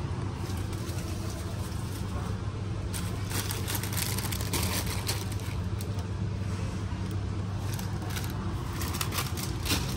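Plastic snack bags crinkling and rustling as they are handled and packed into a plastic shopping basket, in clusters of sharp crackles a few seconds in and again near the end, over a steady low background hum.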